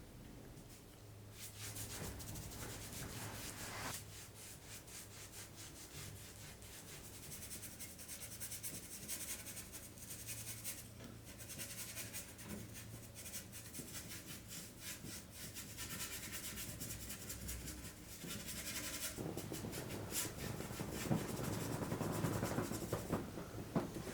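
Rapid, repeated rubbing strokes on a hard surface, like hand sanding or scraping, becoming louder and heavier for the last few seconds.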